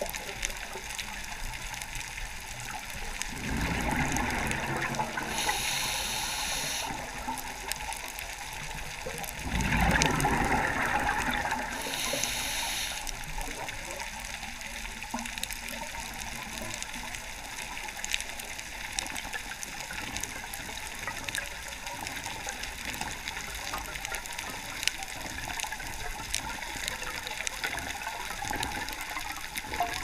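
Scuba diver breathing through a regulator underwater: a short hiss on each inhale and a loud rush of exhaled bubbles, twice in the first half, the second rush the loudest. After that only a faint crackle of scattered clicks goes on.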